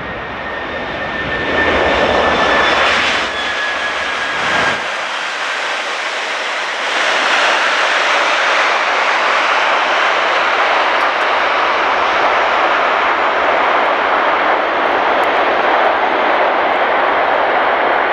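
Airbus A330-200 jet engines running: a rushing roar with a faint high whine that sinks slightly in pitch over the first few seconds. The deep rumble drops out abruptly about five seconds in, and a steady, louder roar follows from about seven seconds in.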